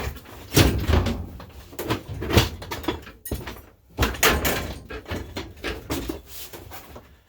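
A string of irregular knocks, clunks and scrapes as parts are handled and moved about in a small workshop.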